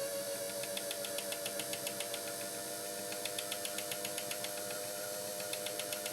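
Singer 317K sewing machine running steadily on its electric motor while winding a bobbin: an even, steady hum with runs of rapid light ticking that come and go.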